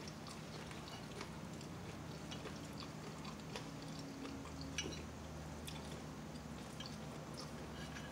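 A person chewing soft cinnamon pancakes with peach compote, with scattered small wet clicks from the mouth and fork, over a faint steady low hum.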